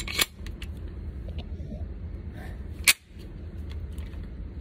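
Metal clicks and a sharp clack as a Glock 23 pistol is handled, then about three seconds in a single loud gunshot that briefly swamps the recording, over a steady low hum.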